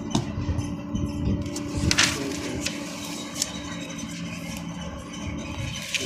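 Steady low machinery hum, with a few short rustles and knocks of paper drawings being handled, the loudest about two seconds in.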